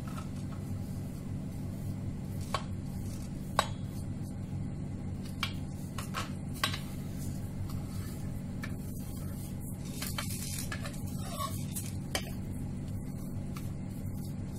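A metal spoon clinking against a stainless steel bowl as spice powders are tipped in, about half a dozen sharp clinks, over a steady low hum.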